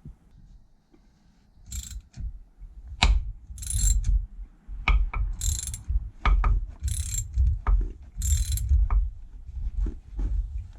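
Ratchet wrench winding in the forcing screw of a large bearing puller to draw the pulley off an air-conditioning compressor. It gives five short rasping ratchet strokes, about one every one and a half seconds, with sharp metallic clicks and knocks between them.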